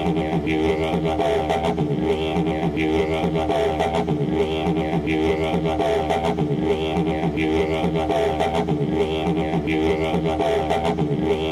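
Didgeridoo music: a continuous low drone with a repeating rhythmic pattern of vowel-like sweeps over it.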